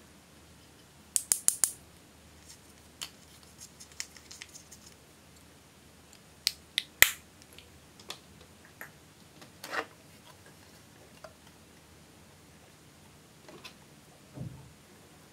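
Plastic eyeshadow compacts tapped and clicked over a glass bowl. A quick run of four or five sharp clicks comes about a second in, then scattered clicks, a short scrape near ten seconds, and a dull thump near the end.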